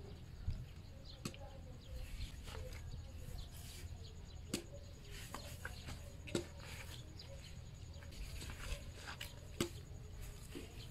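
Faint outdoor ambience with short bird chirps and a few sharp clicks spread through it.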